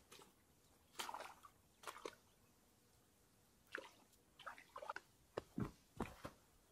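Faint rustling, scuffing and clicks of an angler moving about a muddy, grassy bank in rubber boots, with a light splash or two at the water's edge. A few heavier footfall thuds come a little after five and six seconds in as he steps back towards the rods.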